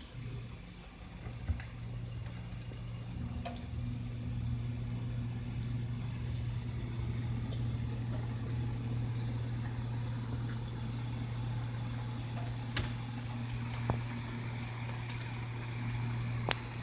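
Steady low electrical hum of a running kitchen appliance, setting in just after the start, with a few light clicks and knocks of kitchenware.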